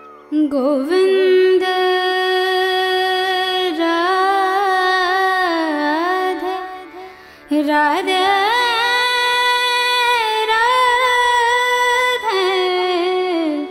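Background music: a sung Indian melody of long held notes with gliding ornaments, in two phrases, the second starting about halfway through.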